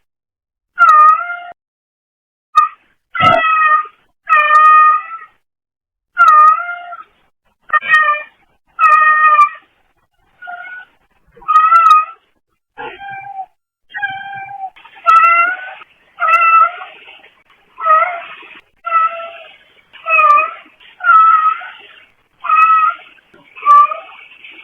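A brown tabby cat meowing over and over: about twenty short meows, each under a second, coming closer together in the second half. The audio comes through a pet camera's microphone.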